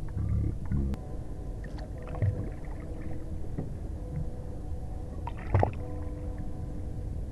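Ambient sound aboard a small boat on the water: a steady low rumble with water against the hull, scattered light knocks and a louder knock about five and a half seconds in.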